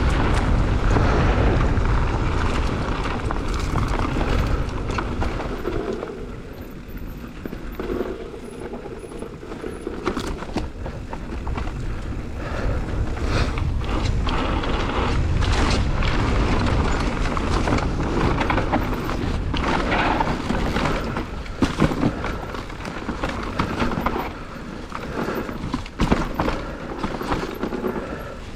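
Low, blustery rumble of wind buffeting a moving microphone, rising and falling, with scattered knocks and rattles that come thicker near the end.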